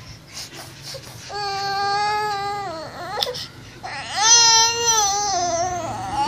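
Baby girl of a few months crying: two long, drawn-out wails, the first starting about a second in and the second louder, starting about four seconds in and dropping in pitch at its end.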